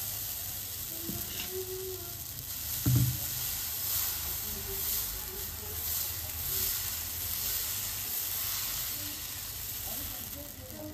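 Dosa batter sizzling on a hot tawa as a ladle spreads it in circles, with a single dull thump about three seconds in.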